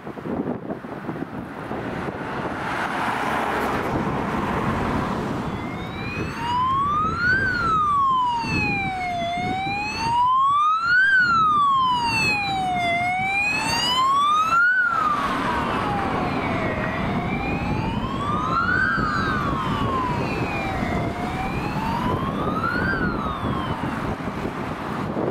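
Ambulance siren wailing, rising and falling slowly about once every four seconds. It starts about six seconds in, over steady road and engine noise.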